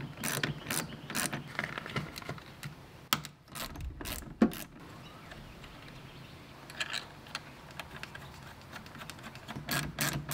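Socket ratchet wrench clicking in short runs while it tightens the nuts on the car battery's terminal clamps, fastening power and earth leads. There is one sharper knock about four and a half seconds in, and a fast run of clicks near the end.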